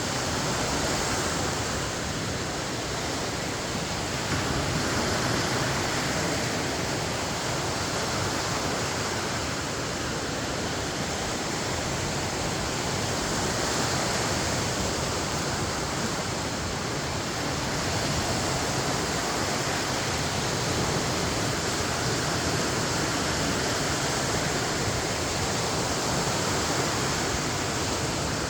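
Lake Michigan waves washing onto the shore: a steady rush of water that swells and eases every few seconds.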